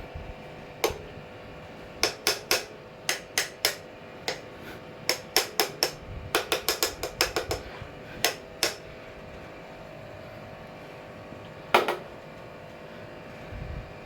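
Sharp clicks in irregular clusters (single clicks, threes and fours, and a quicker run of about eight near the middle, then one loud click near the end) over a faint steady hum. The clicking is said to come from a switched-off Bajaj ceiling fan.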